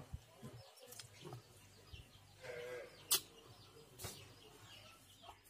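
Mostly quiet, with a few light clicks and a sharper knock about three seconds in. Just before the knock comes a short, faint, wavering animal call.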